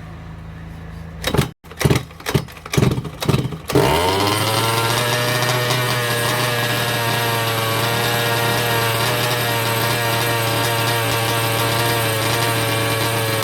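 Two-stroke petrol engine of a 1/5-scale RC car: it idles briefly, then gives several quick throttle blips. From about four seconds in it is held at a steady high speed, its pitch settling slightly and then staying even.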